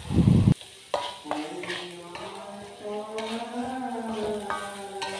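Spatula scraping and stirring sliced petai beans through sizzling chili balado paste in a coated pan. A loud low bump opens the sound, and background music with held notes comes in about a second in.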